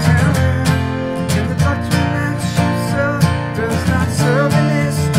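Two acoustic guitars strummed together in a steady rhythm, with a man singing over them.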